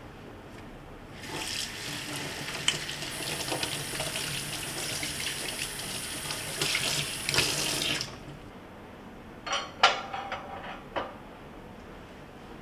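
Tap water running into a stainless steel sink while a white ceramic pot is rinsed under it. The water starts about a second in and is shut off after about seven seconds. A few sharp clinks and knocks follow.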